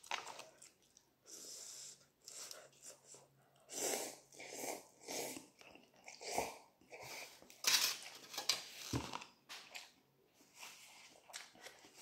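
A person slurping and chewing instant cup noodles eaten with chopsticks: a run of short, irregular slurps and chews with pauses between, and a couple of dull low knocks midway.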